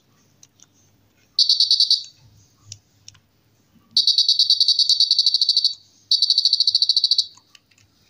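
Piezo buzzer on a homemade infrared remote-control switch board sounding whenever a TV remote button is pressed: three high-pitched bursts, each a rapid stutter of beeps, a short one about a second and a half in, then two longer ones.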